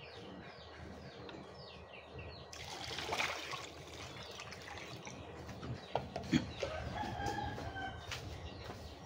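Water poured from a bowl into a wok of dark syrup, splashing loudly about three seconds in. Small birds chirp in quick repeated falling notes at the start, and a rooster crows about six seconds in.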